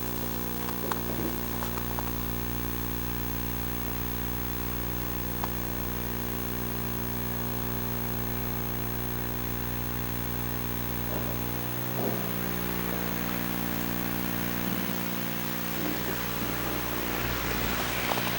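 Steady electrical buzz recorded by a Sony Handycam, a hum with many overtones. There are a few faint ticks, and a hiss grows near the end.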